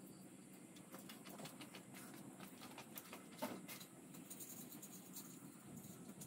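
Faint, scattered clicks and light scratching of small parts and hardware being handled by hand, with one slightly louder sound about three and a half seconds in.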